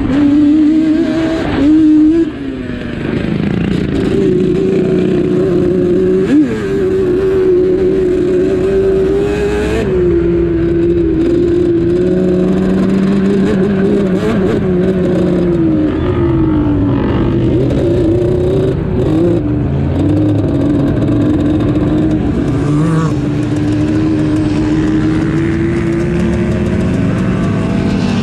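Quad (ATV) engine running under the rider, its pitch rising and falling with the throttle. A single short knock about six and a half seconds in.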